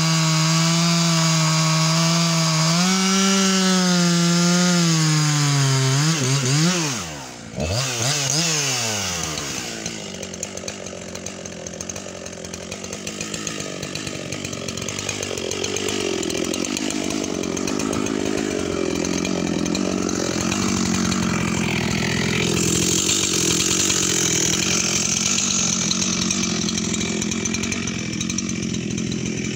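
Makita EA7300P 73 cc two-stroke chainsaw with a 20-inch bar and Stihl RS chain, cutting through a beech log at full throttle, its note wavering under load. About six seconds in the cut finishes, and the revs swoop up and down as the throttle is let off. The saw then runs on at a low, steady idle.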